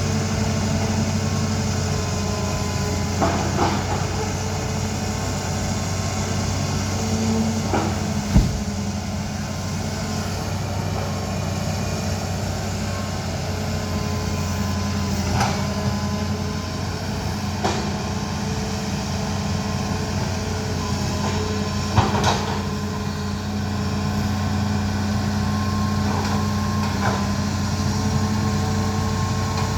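Hydraulic excavator's diesel engine running steadily, with several sharp knocks and cracks scattered through it. The loudest knocks come about eight seconds in and about twenty-two seconds in.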